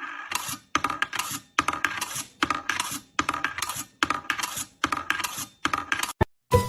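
A steady run of short, clattering scrapes, a little over two a second.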